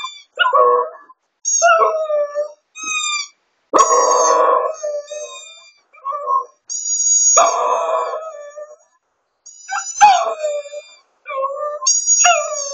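Shih Tzu howling: a string of about eight drawn-out, wavering howls, each a second or so long, mostly sliding down a little in pitch, with short breaks between them.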